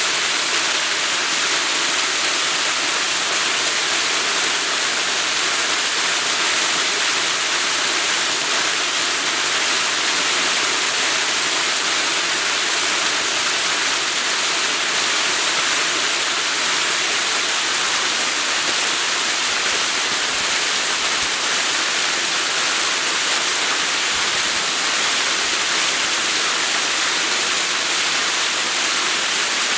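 Waterfall: water pouring and splashing in a steady, loud rush.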